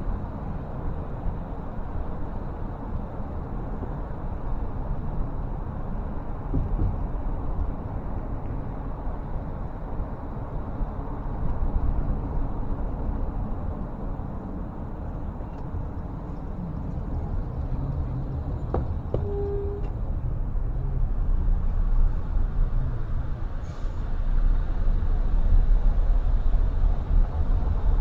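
Steady road noise of a moving car: a low rumble of tyres and engine that grows louder near the end, with a short faint tone about two-thirds of the way through.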